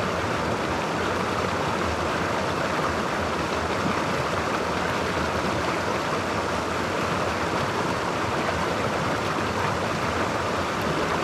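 Creek water flowing over rocks in a steady, even rush.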